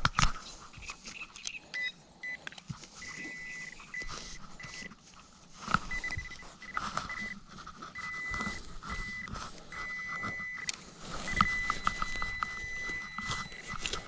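Metal detector giving a steady high-pitched tone in repeated short beeps and longer holds, signalling a metal target, a 2-złoty coin, while it is pinpointed in the ground. Scattered scrapes and clicks of a digging knife cutting into grassy soil.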